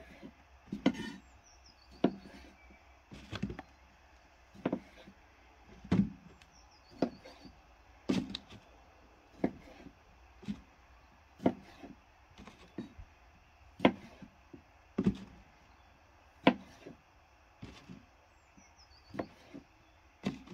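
Large kitchen knife chopping red onion on a wooden board: slow, even knocks about once a second.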